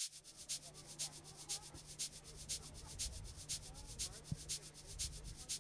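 A soft hiss pulsing evenly about twice a second, like interference in the recording, over a steady low hum and a faint murmur of distant voices.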